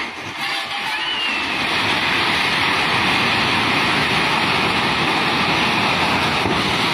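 Swollen river floodwater rushing, a steady loud rush that builds over the first couple of seconds and then holds.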